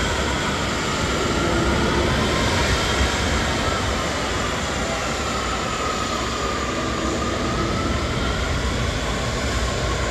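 Jet airliner engines giving a steady, loud roar with a deep rumble, and a faint whine that slowly dips and rises in pitch.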